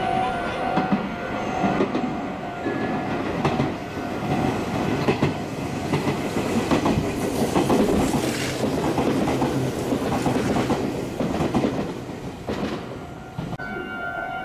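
A Meitetsu electric train running through a station at speed without stopping: wheels clacking over the rail joints and a continuous rattling rush as the cars go by, easing after about twelve seconds. Near the end a steady electronic warning tone starts up again.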